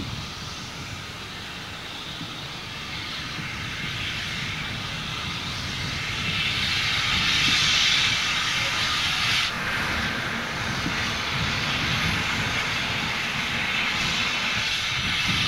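J94 'Austerity' 0-6-0 saddle-tank steam locomotive working hard up a 1-in-50 gradient with a heavy train: exhaust and steam hiss, growing louder over the first eight seconds, with a brief dip about nine and a half seconds in.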